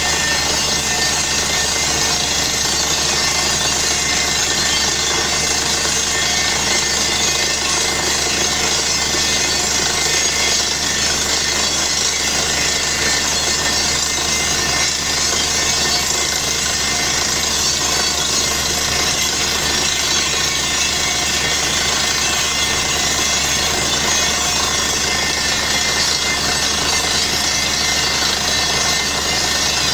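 Truck-mounted borehole drilling rig drilling with compressed air: a loud, steady hiss and rattle as dust and cuttings blast from the hole, without a break.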